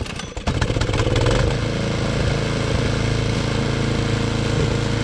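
Gas snowblower engine pull-started: it fires raggedly, catches within about half a second, revs up briefly, then settles into steady running.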